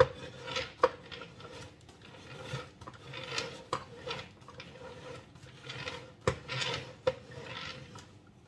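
Metal cake scraper rasping around the side of a cream-frosted cake on a turntable, in repeated swipes about a second long, smoothing the cream coat. A few sharp clicks of metal knocking on the turntable or cake board come near the start and again towards the end.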